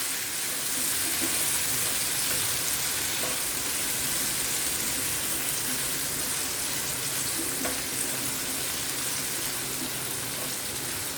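Tomatoes sautéing in hot coconut oil in a pan, a steady even sizzle.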